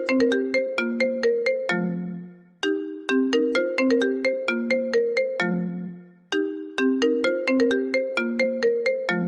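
A phone ringtone playing a short looping melody of quick, sharply struck bright notes. Each phrase ends on a low held note that fades away, and the phrase repeats the same way about every three and a half to four seconds.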